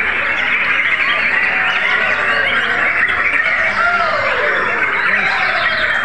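Many caged white-rumped shamas (murai batu) singing at once: a loud, dense chorus of overlapping whistles, trills and chirps.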